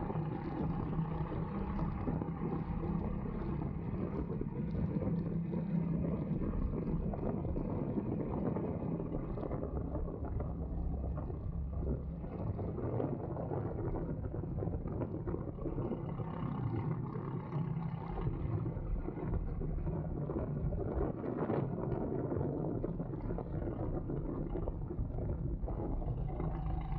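Go-kart engine running at a steady, unbroken level.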